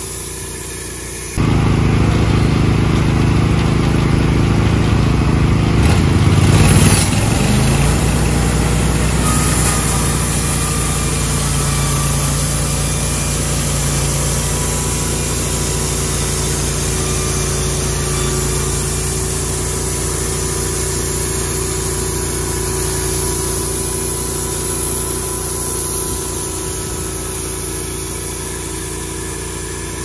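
Norwood LumberPro HD36 band sawmill running as its band blade cuts through a red pine log, a steady engine drone under load. The sound gets suddenly louder about a second in and swells briefly around seven seconds.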